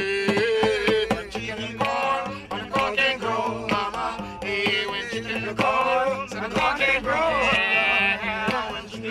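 Music: an acoustic song with a strummed one-string guitar and a steady percussive beat under a bending melodic line, with no words sung.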